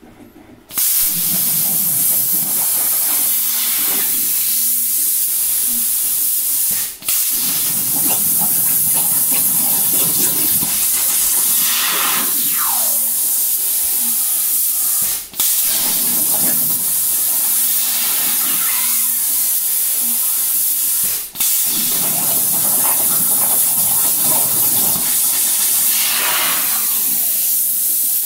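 CNC plasma cutter torch hissing loudly and steadily while cutting 3/16-inch steel plate, stopping briefly three times as the torch finishes one cut and pierces for the next. A falling whine comes twice, about twelve seconds in and again near the end.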